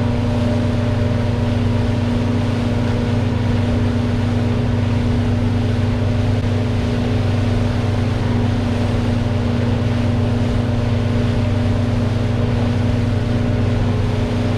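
Fishing boat's engine running with a steady, unchanging hum.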